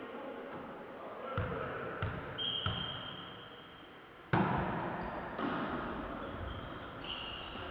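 Volleyball knocks and bounces in a sports hall: a few sharp thuds in the first three seconds with a short high squeal, then the hall noise gets suddenly louder about four seconds in.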